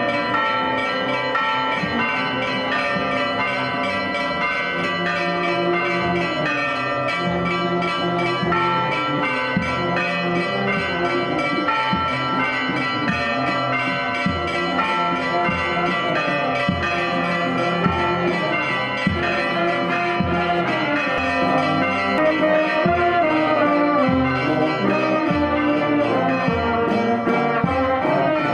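Church bells ringing continuously, several overlapping tones. From about halfway a steady low drum beat joins in, and near the end a marching brass band is heard.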